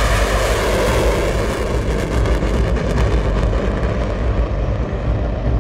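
F-15 Eagle climbing away in afterburner: a loud, steady jet roar with a deep rumble, its pitch falling in the first second as the jet passes, and the high hiss thinning toward the end as it recedes.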